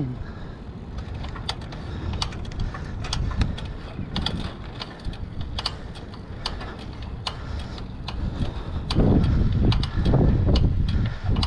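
Rental bike rolling along a concrete path: the front rack rattles and clicks irregularly, a few times a second, over a steady rush of wind on the camera. Near the end it grows louder, with a wavering tone.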